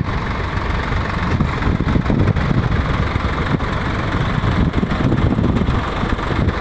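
Swaraj 744 XT tractor's three-cylinder diesel engine running hard under heavy load, a steady dense rumble, as it drags a harrow through deep sand with its rear tyres digging in and its front wheels lifted clear of the ground.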